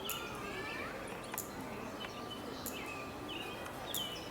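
Small birds chirping and twittering over steady outdoor background noise, with a few sharp ticks about a second and a half apart.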